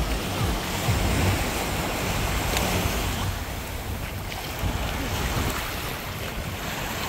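Small waves lapping and washing up onto a sandy beach, with wind buffeting the microphone.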